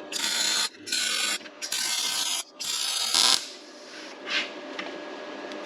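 Welding arc crackling in four short tack-weld bursts of about half a second to under a second each, one after another. A shorter, softer sound follows about a second later.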